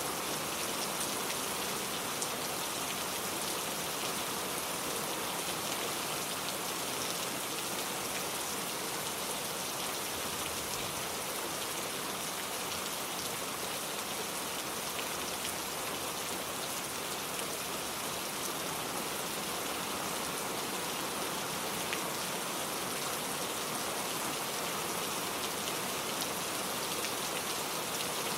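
Heavy rain falling steadily: a dense, even hiss of drops with faint scattered drop ticks.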